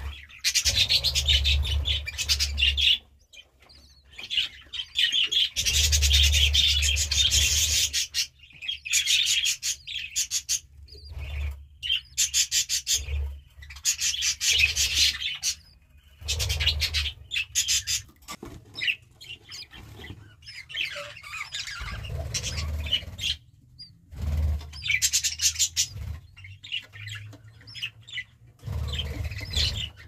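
Budgerigar calling in a nest box: about a dozen bouts of rapid, scratchy, high chattering, each one to two and a half seconds long with short pauses between, over dull low thumps.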